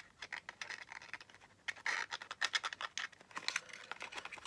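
A folded paper lantern rustling and crinkling as it is gently pushed open from inside with a thin tool: irregular small scratches and paper ticks, sparse at first and busier from about two seconds in.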